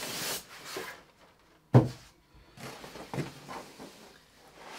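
Cardboard TV box and its packing being handled: rustling and scraping of cardboard and packing pieces, with one loud thud a little under two seconds in.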